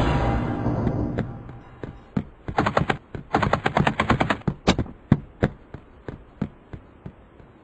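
Cartoon footstep sound effects as a small animated character walks: a run of sharp clicks that quickens to about eight a second, then thins out and fades. A loud, noisy sound from just before dies away in the first second or so.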